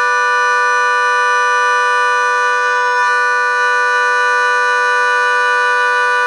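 Harmonica holding one long, steady chord, its volume kept even as it is played through a vacuum-tube LA2-style compressor.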